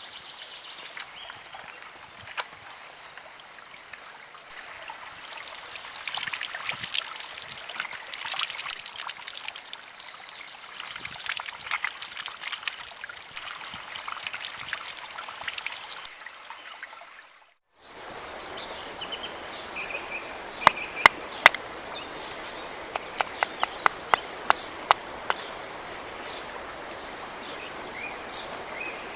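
Outdoor woodland sound in two parts. First comes a steady, water-like rushing hiss with many small crackles. It cuts off suddenly, and a new stretch follows with birds chirping and two runs of sharp knocks or clicks: three close together, then about eight more.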